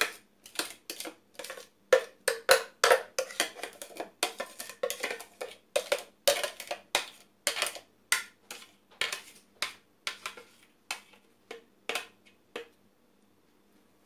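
A kitchen utensil scraping and clicking against a plastic food processor bowl as thick strawberry-cream ice-cream mixture is emptied into a plastic freezer container: a quick, irregular run of clicks and scrapes that stops near the end.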